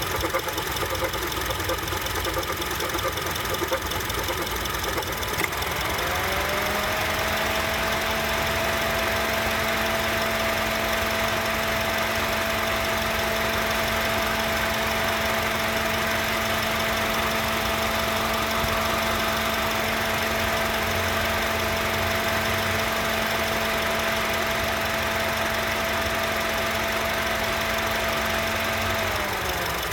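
2007 Honda CR-V engine idling with an odd clunking. About six seconds in, a steady whine rises in as the AC comes on, and the clunking goes away; just before the end the whine falls away as the AC turns off and the uneven clunking returns.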